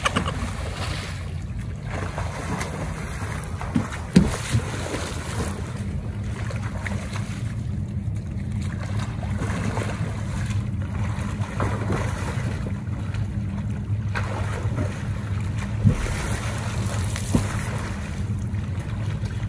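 Wind buffeting the microphone with a steady low rumble, over the splashing of a person swimming in a pool, with a few sharper splashes.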